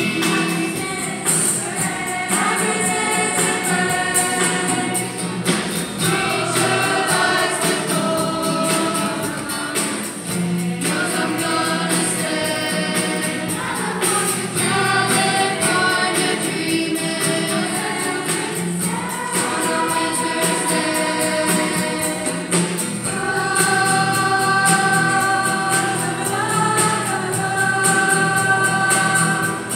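Mixed high school choir singing in harmony, accompanied by two strummed acoustic guitars. Held vocal lines move from phrase to phrase, swelling into a fuller sustained chord near the end.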